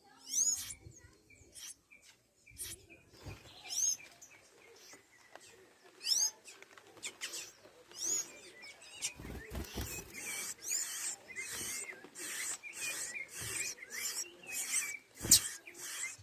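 High-pitched chirping and squeaking of small animals: at first single short calls a few seconds apart, then a dense run of chirps from about ten seconds in. A sharp knock stands out near the end.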